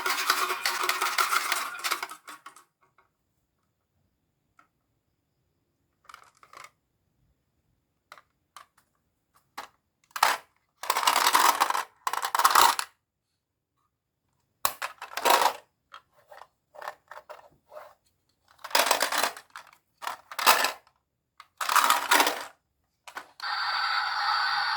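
Marbles rolling and clattering down a wooden HABA marble run track, in scattered bursts of rattling and sharp clicks with short pauses between them.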